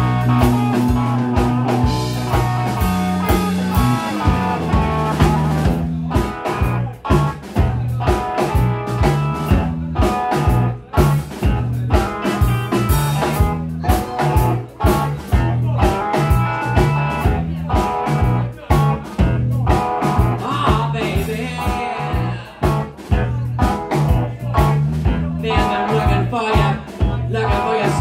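Live blues band playing an instrumental passage: electric guitar and bass over a steady drum-kit beat.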